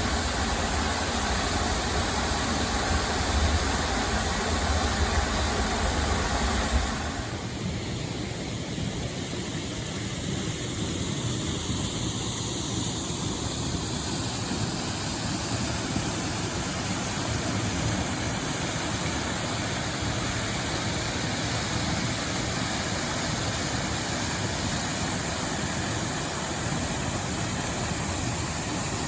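Waterfall water pouring and splashing into a pool, a steady rush. A deep rumble under it stops abruptly about seven seconds in.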